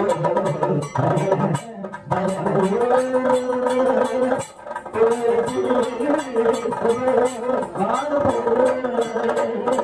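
A male vocalist sings a Kathakali padam in long, slightly wavering held notes, over light percussion strokes.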